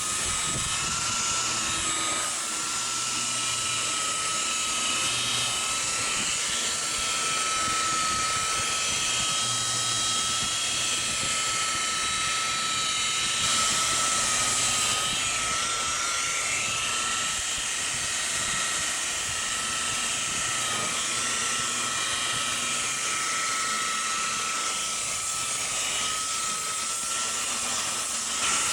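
A power tool's motor running steadily with a high whine that wavers slightly in pitch.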